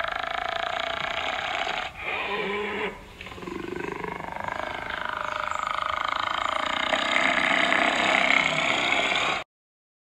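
Striped hyena calling: one long, drawn-out call whose pitch wavers. It breaks briefly about two seconds in and dips a second later, then swells and holds before cutting off abruptly shortly before the end.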